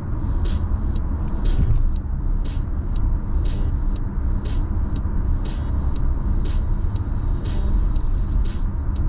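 Steady low road and tyre rumble inside a Mazda's cabin at freeway speed, under background music with a crisp beat about once a second.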